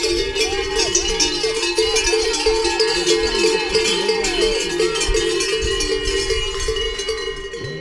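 Spectators' hand-shaken cowbells ringing continuously, a dense clanging wash, with people shouting over it.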